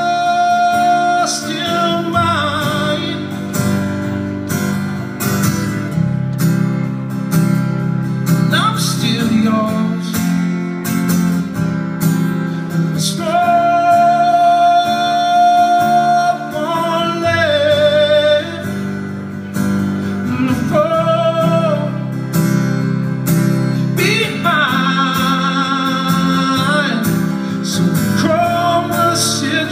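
Live solo song: a man singing to his own strummed acoustic guitar through the club's PA, with several long held notes, one of them wavering near the end.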